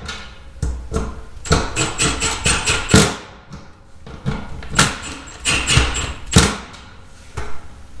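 Milwaukee cordless impact driver run in several short bursts, hammering with a high whine as it tightens the nuts on an electric range's power-cord terminal block.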